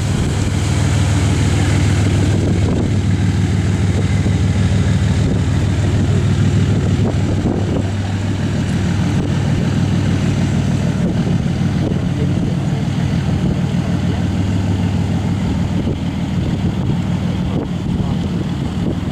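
Steady low drone of ships' diesel engines, a stack of engine tones running evenly, with wind noise on the microphone.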